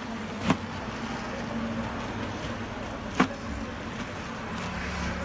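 Goods being packed by hand into a cardboard carton: two sharp knocks about 2.7 seconds apart, over steady background noise with a low hum.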